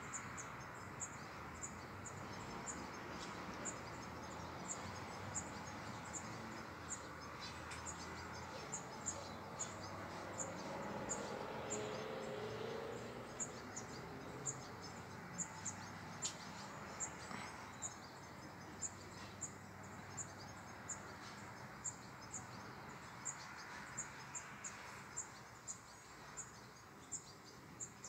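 An insect, likely a cricket or bush-cricket, chirping: short, very high chirps repeating evenly about every two-thirds of a second over a steady outdoor hiss. A faint low rumble swells about ten seconds in and fades again.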